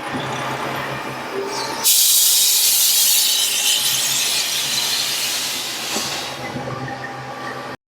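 Heavy machinery running with a low hum. About two seconds in, a loud hiss starts suddenly and fades away over the next several seconds.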